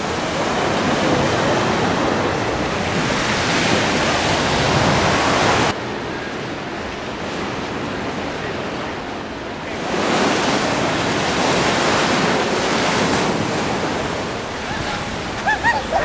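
Ocean surf breaking and washing up on a sandy beach, a steady rush of noise. It turns abruptly duller and quieter about six seconds in, then comes back about four seconds later.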